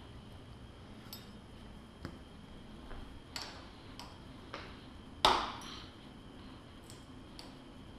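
Light metallic clicks and clinks of hand tools: a folding Torx key set being handled and a key worked at the motorcycle's handlebar end. There are about half a dozen small clicks and one sharper, ringing clank about five seconds in.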